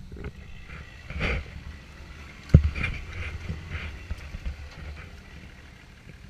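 An off-road 4x4's engine rumbling low as it climbs a steep dirt slope, with wind noise on the microphone. There is one sharp, loud thump about two and a half seconds in.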